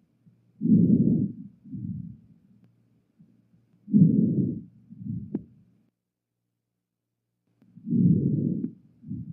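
Breath sounds heard through a stethoscope: three deep breaths about four seconds apart, each a louder breath in followed by a shorter, fainter breath out, over a faint steady hum.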